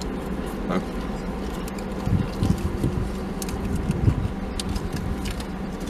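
Steady low hum of a parked car heard inside its cabin, with soft chewing and handling sounds, and light crinkling as a ketchup packet is torn open about midway.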